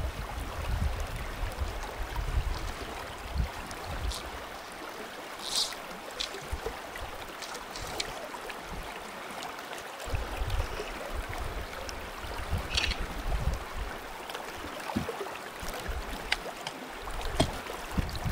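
Limestone spring creek water flowing and lapping around a wading angler, a steady rush with uneven low rumbling that comes and goes.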